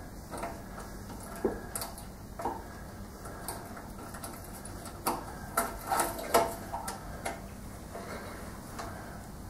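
Small scattered metallic clicks and taps as a screwdriver loosens the clamp screw and frees the throttle lever from the mower's handlebar, with a quick run of sharper clicks a little past the middle.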